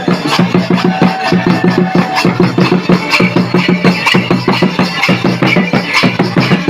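Santali dong music with a fast, steady drum beat.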